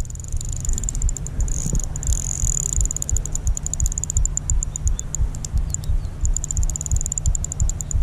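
Daiwa Exceller LT 2000D spinning reel working against a large hooked pike: rapid high-pitched clicking, strongest about two seconds in and again in the last couple of seconds, over dull uneven thumping.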